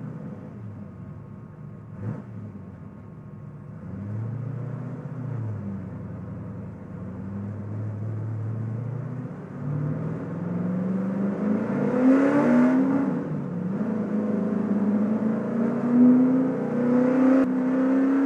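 Holden Commodore race car's V8 engine heard from inside the cabin, running at low revs with a couple of brief rises at first, then accelerating from about ten seconds in, its pitch climbing and dropping back at each gear change.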